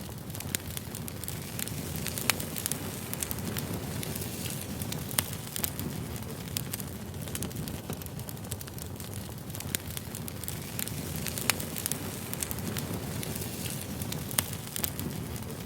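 Wood fire burning, with a steady low rumble and scattered sharp crackles and pops, a few louder snaps among them.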